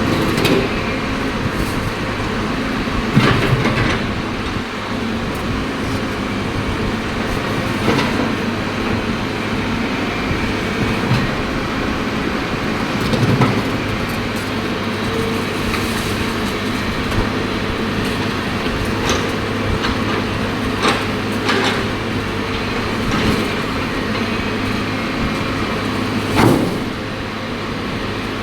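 CAT excavator's diesel engine running steadily under load, with a few heavy knocks and clanks and some scraping as its attachment breaks up concrete.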